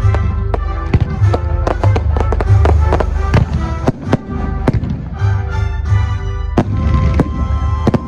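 Fireworks finale: a rapid string of bangs and cracks, several a second, over music with steady held notes and a pulsing bass.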